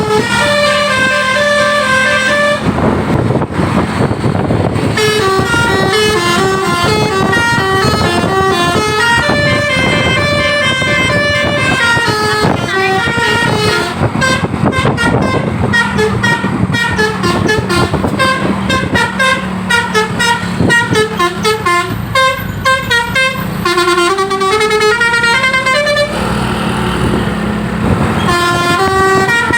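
Basuri 'telolet' musical air horns on Indonesian buses, playing quick tunes of short stepped notes one after another almost without pause, with a run of gliding notes near the end, over the noise of the buses.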